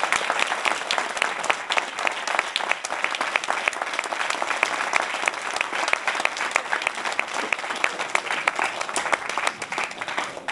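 A room of guests applauding: dense, steady hand-clapping that begins to thin out near the end.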